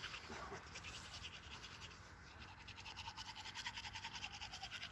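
Teeth being brushed with a small folding toothbrush: fast, even back-and-forth scrubbing strokes, faint, easing briefly about two seconds in before picking up again.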